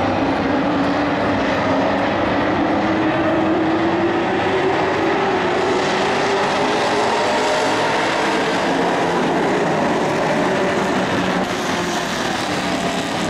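A pack of dirt-track racing trucks running at speed: several engines blend into one loud, steady drone whose pitch rises and falls slowly.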